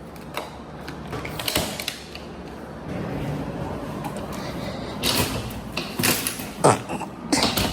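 Luggage being moved: a steady rolling rumble with creaks and several sharp knocks and bumps, mostly in the second half.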